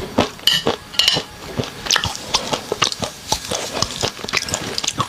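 Close-miked chewing and biting of raw rice-wine-marinated shrimp: a quick run of wet mouth clicks and smacks, with a brief hissing stretch about half a second in.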